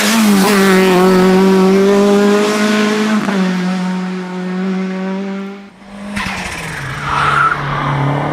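Race car engine held at high, steady revs, with a brief break in the note about three seconds in before it carries on. Near six seconds the sound drops away and a second car's engine comes in at a lower pitch, with a short tyre squeal.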